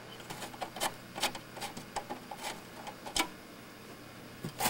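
Irregular light clicks and small metallic ticks of thumbscrews being worked loose from the back panel of a Shuttle SS51G small-form-factor PC case.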